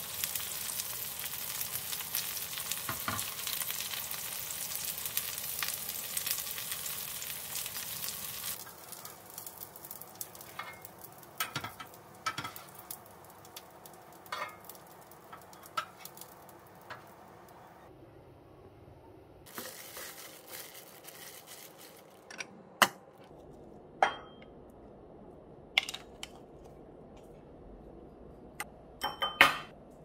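Green onion pancakes (pajeon) sizzling as they fry in oil in a frying pan, cutting off about eight seconds in. Scattered knocks and clinks of kitchenware follow, with a few sharp, ringing clinks near the end.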